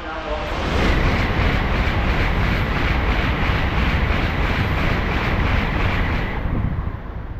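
N700-series Tokaido Shinkansen bullet train passing through the station at high speed without stopping: a loud rush of air and rolling wheels that builds within about a second, holds for some five seconds with a steady high whine through it, then eases off near the end.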